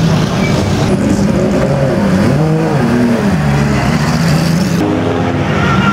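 GT race car engines running at idle, with throttle blips that rise and fall in pitch around the middle; the engine sound changes abruptly near the end.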